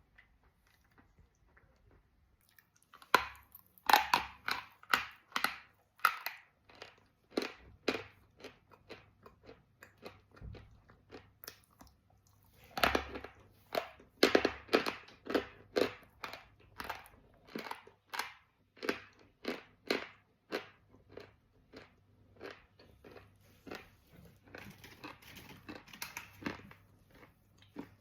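Wet chalk being chewed close to the microphone: a run of crisp crunching bites, about two a second, starting about three seconds in and easing off briefly around the middle before picking up again.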